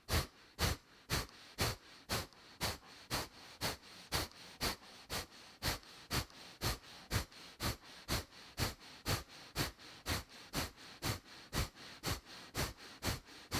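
Kapalabhati breathing: a man's forceful, sharp exhalations through the nose, a steady series of short puffs about two a second.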